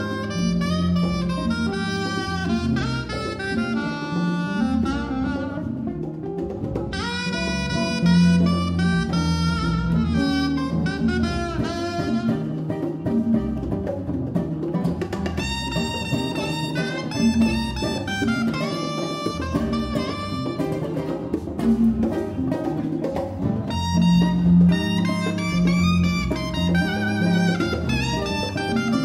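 Live small-group jazz: a saxophone plays flowing melodic phrases over acoustic guitar, bass and hand percussion such as congas.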